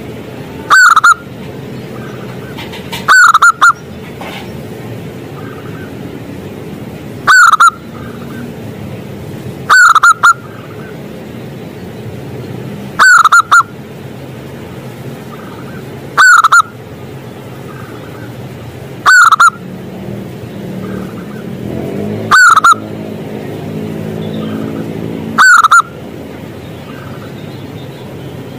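Zebra dove (perkutut) calling, loud repeated coos roughly every three seconds, nine in all, some doubled, over a steady low background rumble.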